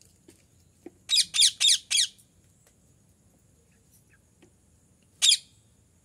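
Rose-ringed parakeet squawking: four shrill calls in quick succession, each sliding down in pitch, then one more call near the end.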